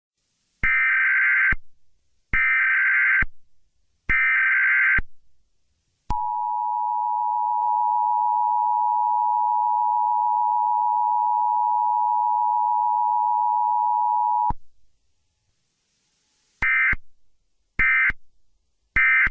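Emergency Alert System tones. Three one-second bursts of harsh data screech (the SAME header) are followed by the steady two-tone attention signal, held for about eight seconds. Three short data bursts follow near the end.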